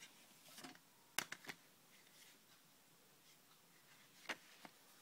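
Plastic CD jewel case and its paper booklet being handled: a soft rustle, then three quick sharp clicks about a second in and another click just past four seconds.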